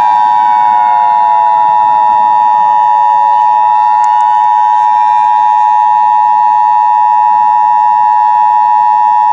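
Emergency Alert System attention signal: a loud, steady electronic two-tone hold. For the first three seconds a fainter tone slides downward beneath it.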